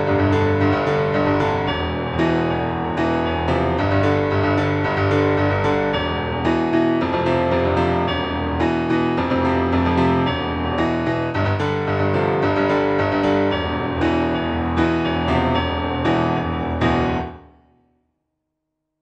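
Solo piano music with a steady run of struck notes, fading out quickly near the end.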